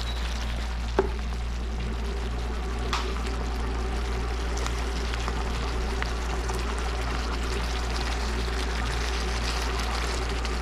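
Snapper in tomato-pepper sauce simmering in a frying pan: a steady bubbling sizzle with faint pops, over a low steady hum. A single light knock about a second in.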